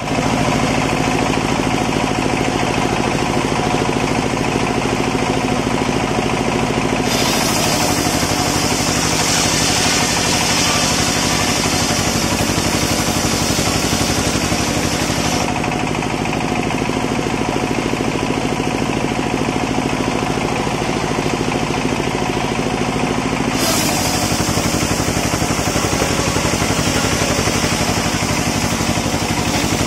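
Engine-driven circular-saw bench mill running steadily throughout. Twice, from about seven seconds in to about fifteen and again from about twenty-four seconds on, the big blade rips lengthwise through a teak log, adding a loud high rushing sound over the running machine.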